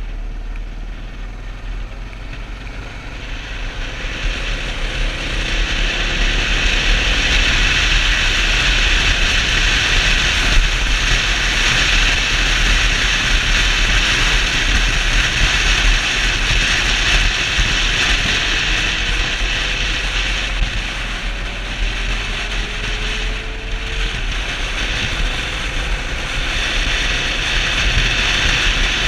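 Suzuki DR650's single-cylinder engine running at road speed under heavy wind rush on the microphone. The sound builds over the first several seconds as the bike accelerates out of a corner onto a straight, then holds steady.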